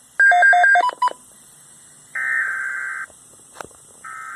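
Electronic alert tones from a Weather Radio Canada broadcast: a quick run of alternating beeps, then two buzzing data bursts about a second long, a second apart.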